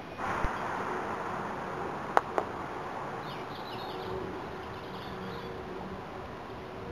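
Croquet mallet striking a ball with a sharp clack about two seconds in, followed a moment later by a lighter click, over a steady hiss with a few faint bird chirps.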